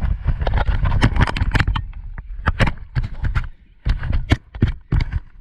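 Banana boat being towed over waves: rapid, irregular sharp slaps and splashes over a low wind rumble.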